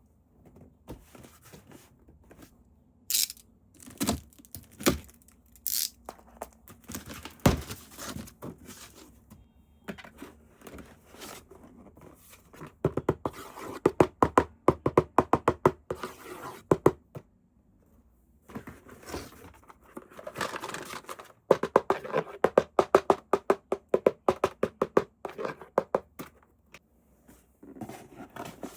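Toy packaging being handled and opened: scattered knocks and thunks with tearing and crinkling, then long runs of rapid clicking and rattling.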